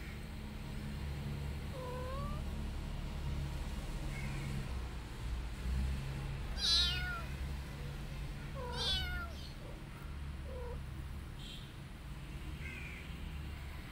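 Kittens meowing: a handful of short, high-pitched meows, the loudest two about seven and nine seconds in, with fainter ones between, over a steady low hum.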